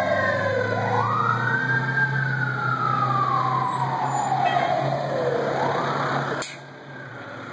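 Fire engine's siren wailing in a slow rise and fall, up once and down to a low point before climbing again, over the steady running of the truck's engine. It breaks off abruptly about six and a half seconds in, and a fainter siren and traffic sound follow.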